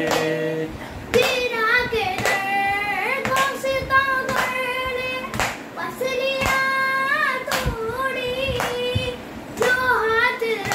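A boy singing a noha (Shia mourning lament) alone, in long drawn-out lines, while beating his chest with his palm in matam about once a second.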